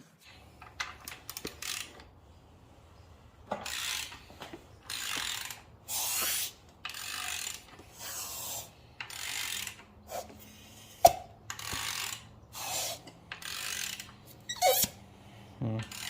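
Ratchet wrench worked in repeated strokes, each stroke a burst of clicking, with one sharp click about two-thirds of the way through. The wrench is turning the engine over by hand on a freshly re-ringed Audi A4 2.0T block, and the pistons are building compression.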